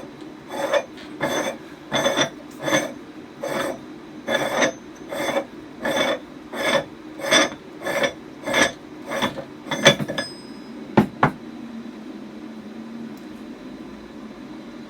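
The screw-down metal door of a small laminating autoclave being unscrewed by hand: a regular rasping, clinking scrape with a metallic ring, about one stroke every two-thirds of a second, about fifteen times. It stops about ten seconds in, followed by two sharp clicks as the door comes free.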